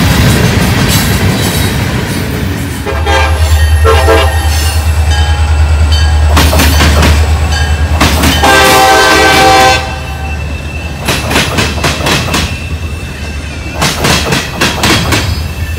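Freight train rolling by: rumble of steel wheels on the rails, then a diesel locomotive's air horn sounding several blasts over a deep engine drone. After about ten seconds the horn stops and the passing cars' wheels clack over the rail joints, with one more short horn blast near the end.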